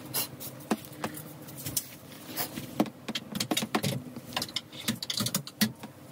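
Metal wire-and-spring mattress support of a drop-side crib clanking and rattling against the wooden crib frame as it is maneuvered into its mounts: a run of irregular knocks and clicks.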